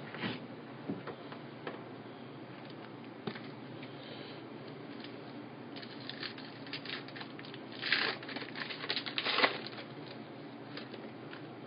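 Trading card packs being handled and opened: scattered crinkles and rustles from the wrappers and cards, with a denser, louder run of tearing and crinkling from about eight to nine and a half seconds in.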